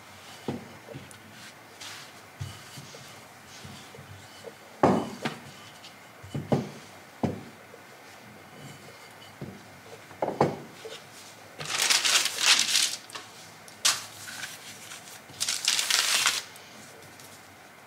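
Dough being rolled out with a wooden rolling pin on a silicone mat, with several sharp knocks of the pin. Near the end, baking paper crinkles in two stretches of about a second each as the dough is laid on it.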